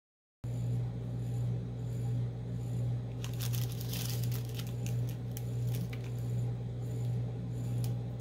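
Small plastic bags of diamond-painting drills crinkling and rustling as they are handled, busiest about three to four and a half seconds in, over a steady low hum that starts a moment in.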